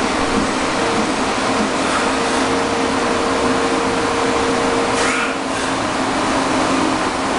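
Electric pedestal fan running: a steady rush of air with a faint motor hum.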